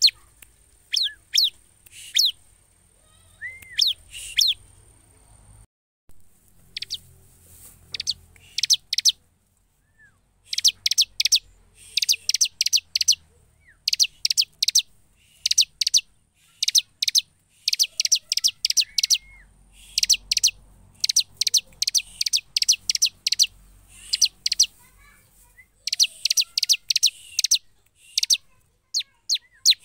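Bar-winged prinia (ciblek) calling vigorously: sharp, high chirps in quick bursts of three to six notes, repeated over and over with only a brief pause about ten seconds in.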